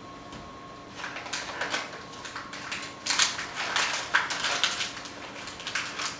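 Paper and cardboard packaging of a box of Jiffy corn muffin mix rustling and crackling as it is handled and opened, in irregular bursts that grow busier from about a second in.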